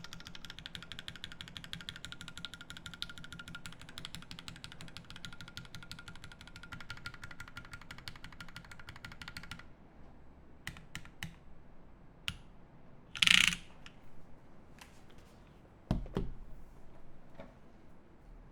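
Fast typing on a Savage65 mechanical keyboard with lubed Zeal Tealio V2 67g linear switches and GMK Coral keycaps: dense, even keystrokes for about ten seconds, then the typing stops. After that come a few scattered clicks, a loud short burst of noise about two-thirds of the way in, and a low knock near the end.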